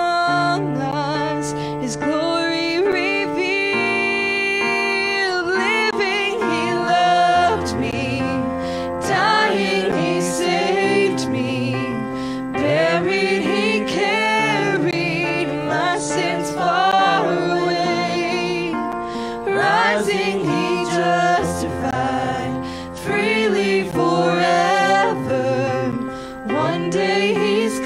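Church worship team singing a worship song in harmony, a woman's lead voice with mixed backing voices, over electric keyboard accompaniment.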